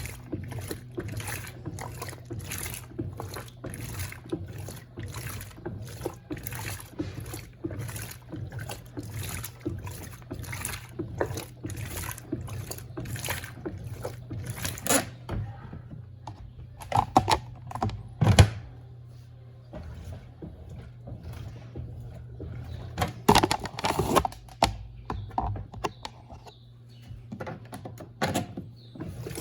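Electrolux Turbo Compacta LTC07 top-loading washing machine agitating a load in water: a regular sloshing swish about twice a second over a steady motor hum. The strokes stop about halfway, and a few separate louder splashes or knocks follow.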